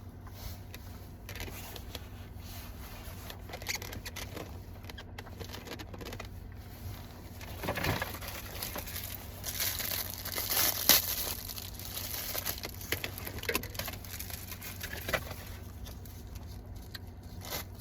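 Someone eating loaded waffle fries: chewing, with scattered crinkles and clicks as the food is handled. The loudest sounds come about eight and eleven seconds in.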